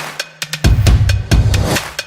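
Background music with a heavy, fast drum beat: kick drum, snare and rimshot hits over a low bass tone.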